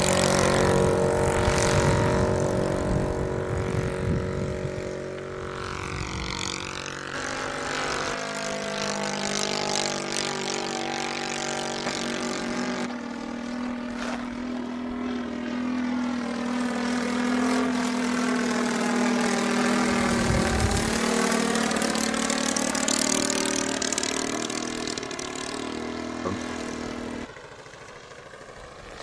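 Quarter-scale model aeroplane's MOKI 50VT engine and propeller running at flying power through takeoff and a flypast. Its tone sweeps down and back up as it passes about two-thirds of the way in, and it falls away near the end as the plane flies off.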